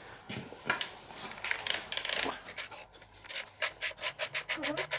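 A hand tool rasped back and forth on a part in quick, even strokes, about five a second from about three seconds in, after a few scattered scrapes.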